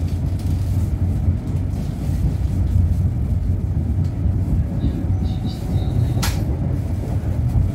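Steady low rumble of the Argo Lawu passenger train running along the track, heard from inside the carriage. There is one brief sharp click about six seconds in.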